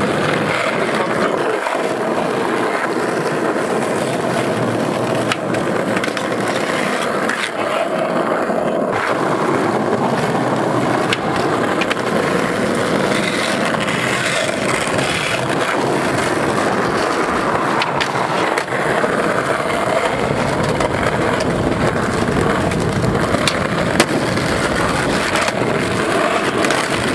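Skateboard wheels rolling on rough asphalt in a steady rumble, with a few sharp clacks of the board popping and landing, the loudest about 24 seconds in.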